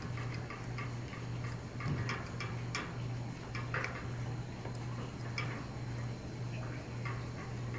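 Plastic spoon stirring a yeast-and-water mix in a small glass bowl, ticking lightly against the glass a few times a second.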